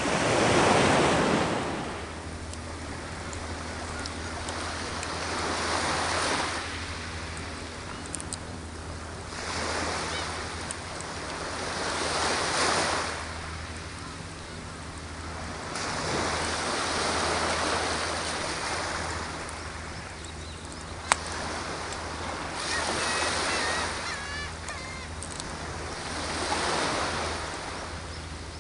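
Sea waves breaking and washing up the shore, swelling and fading about every four to five seconds, with one sharp crack about two-thirds of the way through.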